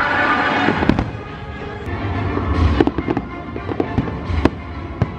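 A fireworks display: aerial shells bursting in a string of sharp bangs and low booms, with music playing underneath.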